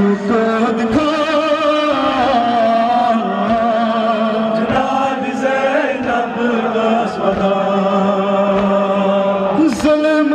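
A male voice chanting a Kashmiri noha, a Shia mourning lament, amplified through a microphone and loudspeaker, with other men's voices joining in. The lines are long and held, with a wavering pitch.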